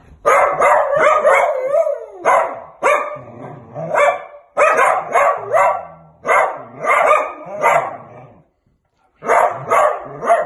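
Dachshund barking in quick runs of short, sharp barks, with a brief pause near the end.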